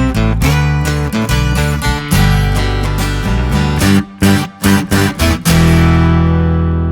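Background music: strummed guitar chords in a steady rhythm, broken by a few short stabbed chords about four seconds in, ending on one chord left ringing and slowly fading.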